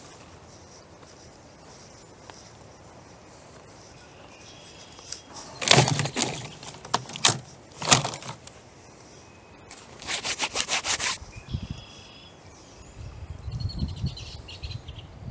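Birch logs and branches being dropped into a wooden yard cart: a few heavy clunks about six to eight seconds in, then a quick clattering run of knocks, and a low rumble near the end.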